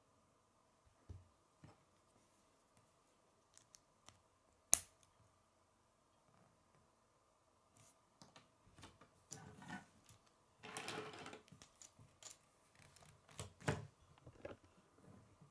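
Plastic K'nex rods and connectors clicking and snapping together as a model is assembled by hand. Scattered light clicks, one sharp snap about a third of the way in, a longer stretch of plastic clattering and rubbing about two-thirds in, and another firm snap near the end.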